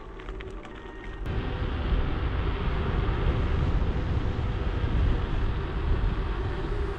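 Wind rushing over the microphone of a camera on a moving bicycle, mixed with road noise from riding on tarmac. It is quieter with a few faint clicks at first, then suddenly louder from about a second in.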